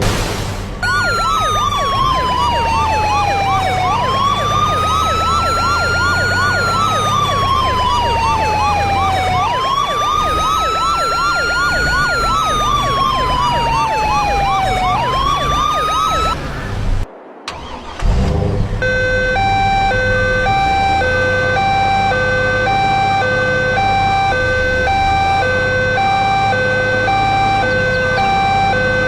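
A truck's electronic horn system sounding. First comes a siren tone that slowly falls and rises, about five seconds per sweep, over a fast warble. After a brief break, a hi-lo pattern switches between a lower and a higher tone about twice a second. A truck engine runs underneath.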